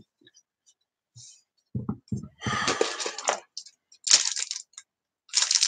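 Plastic model-kit parts and their clear bag being handled: irregular crinkling and light clicks, starting after almost two seconds of near silence.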